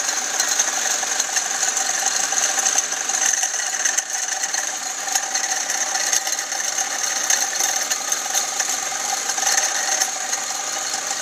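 Chrysler Crossfire SRT-6 engine running with a rapid, steady mechanical clicking, the unexplained click noise the owner is trying to have diagnosed.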